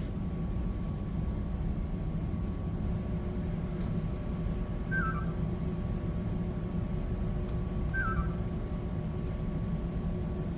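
Steady low hum and rumble from a model train layout with its track just powered. A short, high, stepped chirp repeats about every three seconds.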